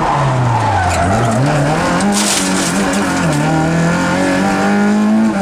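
Rally car engine heard from inside the cabin, its revs dropping, climbing and dropping again through braking and gear changes, then held high and steady near the end. A short hiss comes a little after two seconds in.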